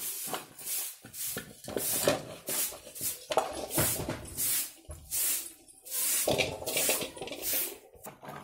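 Plastic toys scraping and rubbing on a concrete floor in short, irregular strokes, several a second, with light clatter from a steel bowl.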